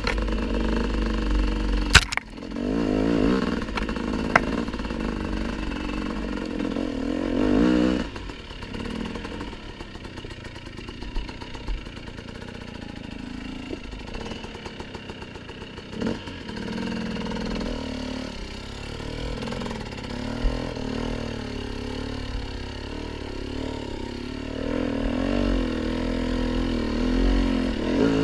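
Dirt bike engine under way on a rough trail, revving up and down as the throttle opens and closes. There is a sharp knock about two seconds in. The engine runs lower and quieter through the middle and picks up again near the end.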